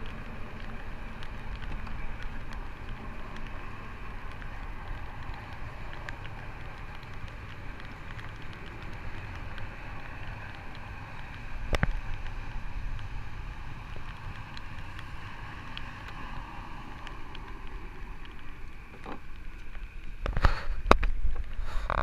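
Steady low rumble of a small fishing boat's outboard motor running, with a single sharp click about halfway. Near the end comes a run of louder sharp splashing knocks as the hooked white sturgeon thrashes at the surface beside the boat.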